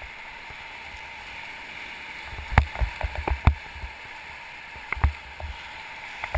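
Steady rush of river water from a raft, with a cluster of short knocks and thumps about two and a half to four seconds in and a few more around five seconds.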